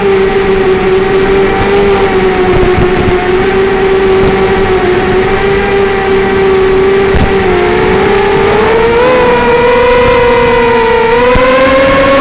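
Quadcopter's Emax 1804 2300kv brushless motors and 5x3 propellers whining in flight, a steady pitched hum that climbs in pitch over the last few seconds as the throttle goes up.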